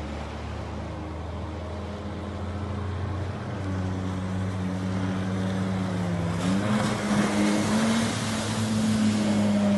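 Avon 400DL jet-drive boat's engine running at speed, a steady drone that dips in pitch briefly just after six seconds in and rises again. It grows louder as the boat comes closer, with a rush of water spray about six and a half seconds in.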